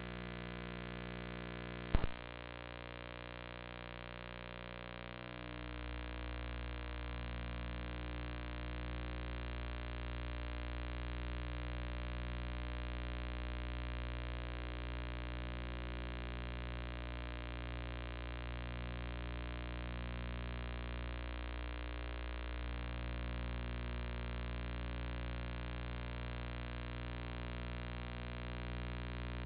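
Steady electrical hum with many overtones, and one sharp click about two seconds in. The deepest part of the hum grows louder about five seconds in.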